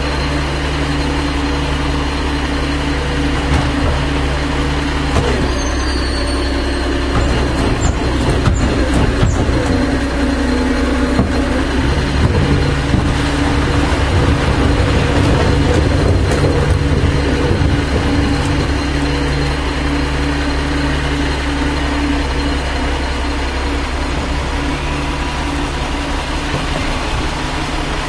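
1996 Volvo WX64 garbage truck's diesel engine idling, then running louder and busier for about twelve seconds in the middle before dropping back to a steady idle.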